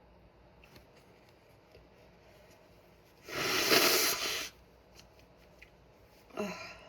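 A loud rush of air forced through a person's nose, lasting just over a second, about three seconds in.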